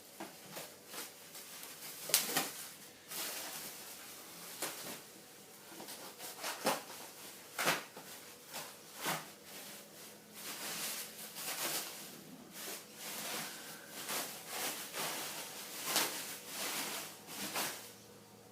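Packaging being handled and opened: irregular rustling, crinkling and sharp clicks and knocks of wrapping and cardboard, several a second, with a few louder knocks.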